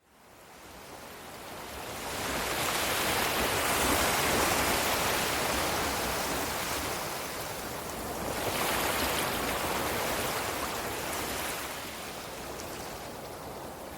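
Ocean waves washing onto a shore: a steady rush of surf that rises from silence at the start and swells twice, easing between the surges.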